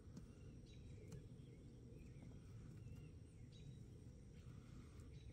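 Near silence: faint low outdoor background noise with a few faint bird chirps.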